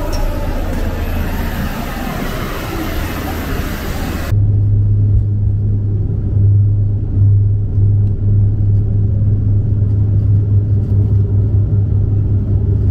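Loud traffic noise from vehicles, then an abrupt cut about four seconds in to a steady low engine drone.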